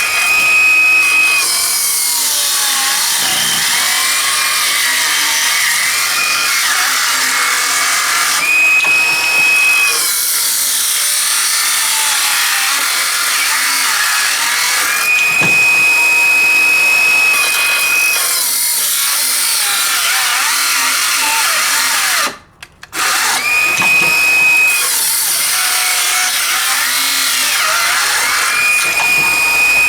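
DeWalt 12V XTREME brushless circular saw cutting through a 2x4 again and again: a steady high whine when the blade spins free, sagging and wavering in pitch as it bogs down in the wood. The weak knockoff battery barely pushes it through each cut. The saw stops briefly about three-quarters through.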